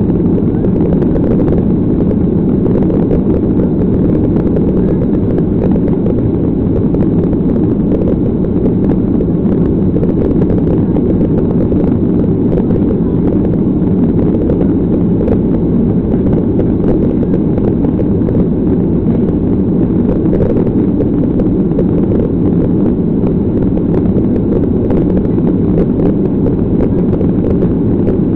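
Steady jet engine and airflow noise of a Boeing 737 heard inside the passenger cabin, a loud, even, deep rush with no change in level.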